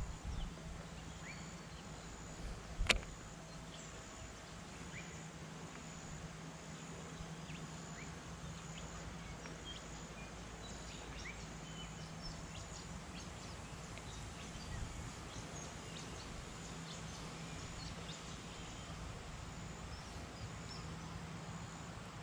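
Outdoor ambience: faint scattered bird chirps and a high insect call pulsing about once a second over a low wind rumble, with one sharp click about three seconds in.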